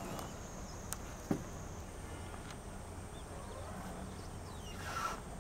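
A steady low hum with two light knocks about a second in, the kind made by a step or a bump on a fibreglass boat deck, and a short rush of noise near the end.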